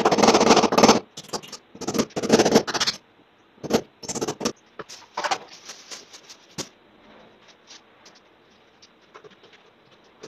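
A hand tool scraping across the top of a gypsum plaster block: two long, loud scraping passes in the first three seconds, then shorter scrapes and light knocks that stop about two-thirds of the way in.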